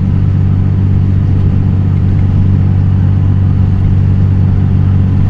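Vehicle on the move: a steady, loud, low engine and road hum that holds one pitch throughout.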